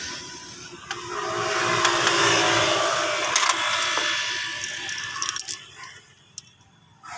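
Metal spark plugs clinking against each other in a hand, a few sharp clicks, over a broad rushing noise that fades out about five and a half seconds in.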